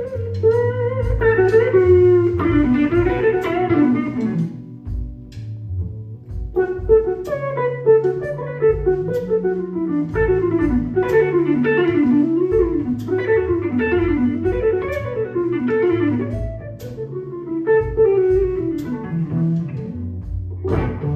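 Blues band playing live: an electric guitar takes a lead solo of bent, sliding notes over bass and drums. The lead drops out briefly about four seconds in, then comes back with quick runs.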